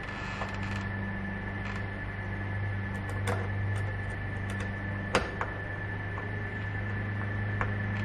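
Phillips screwdriver tightening a screw through a deadbolt's metal mounting plate on a door, giving a few light clicks and one sharper tick about five seconds in, over a steady low hum.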